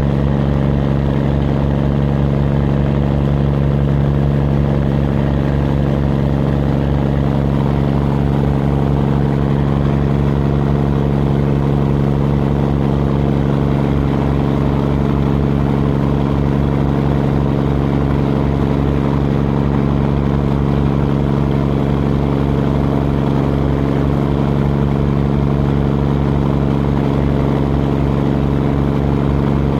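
Fishing boat's engine running at a steady pitch under load while towing, a loud even drone that does not change.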